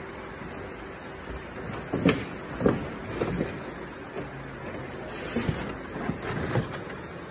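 Steady background hum of a large hall, with a string of irregular knocks and clunks starting about two seconds in, the two loudest close together near the start of the string.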